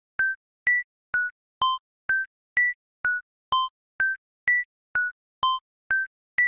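Background music: a repeating up-and-down three-note figure of short electronic notes, about two a second, each note dying away quickly.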